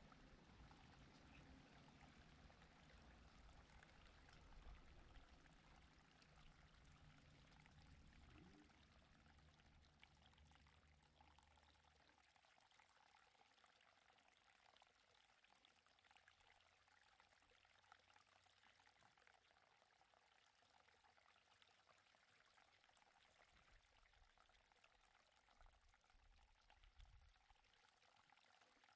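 Near silence: a faint steady hiss, with a faint low hum that stops about twelve seconds in.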